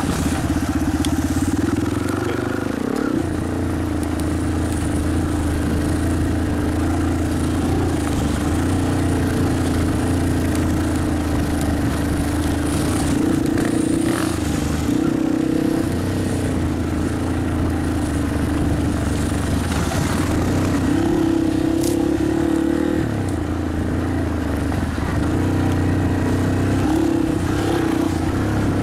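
Dirt bike engine running under way on a trail, its revs rising and falling as the rider works the throttle.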